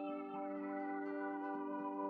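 Calm ambient background music of long, held tones that shift slowly.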